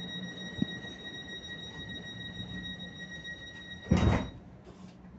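Interior of a PKP Intercity ED160 (Stadler FLIRT) electric multiple unit: a steady high electrical whine over a low hum. A short, loud burst of noise comes about four seconds in, and the whine stops just after it.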